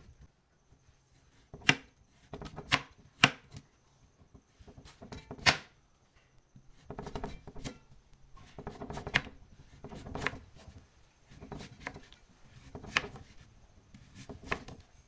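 Chef's knife slicing a raw carrot into thin lengthwise slabs on a plastic cutting board. Each cut is a short scrape through the carrot ending in a sharp knock of the blade on the board, about ten knocks at an uneven, unhurried pace.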